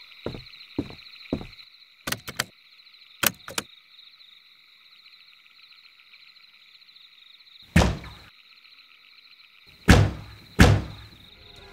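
A fist banging on top of a small portable television: three heavy thumps, one about two-thirds of the way in and two close together near the end. Under them runs a steady high chirring of night insects or frogs, with a few light knocks in the first few seconds.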